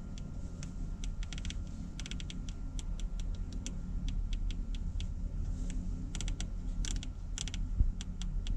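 Detent clicks of a Garmin G1000's small FMS knob being turned in quick runs to spell out a waypoint name, over a steady low hum, with one thump near the end.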